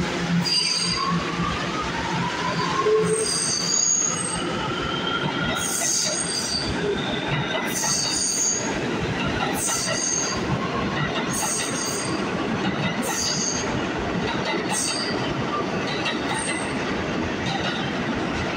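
New York City subway train running past the platform at speed: a steady rumble of steel wheels on the rails, with short high wheel squeals and clicks recurring every second or so, and a few gliding squeals in the first few seconds.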